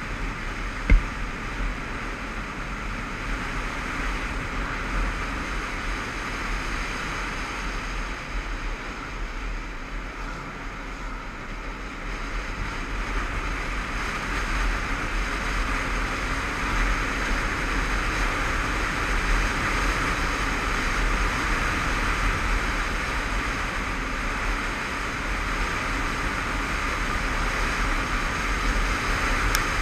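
Wind rushing over the microphone of a moving motorcycle, mixed with the bike's running engine. A single sharp knock comes about a second in, and the rush grows louder from about halfway.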